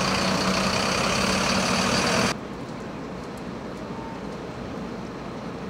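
Diesel engine of a Mercedes-Benz Atego truck idling steadily close by. About two seconds in it cuts off abruptly, leaving a quieter, steady outdoor hiss.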